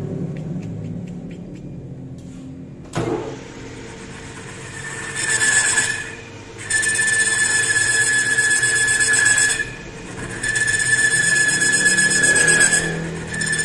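Metal lathe boring out the bearing housing of a Yamaha scooter fork. A sharp click comes about 3 seconds in. From about 5 seconds the cutter squeals in a high, steady tone, in stretches broken by short pauses.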